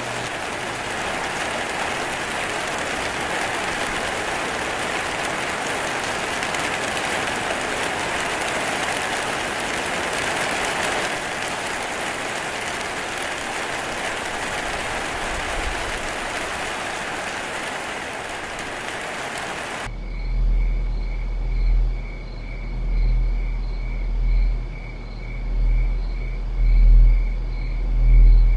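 Steady, heavy rain hiss for about twenty seconds. It cuts off suddenly to a deep drone that swells and fades a little more than once a second, with crickets chirping in a fast, even high pulse above it.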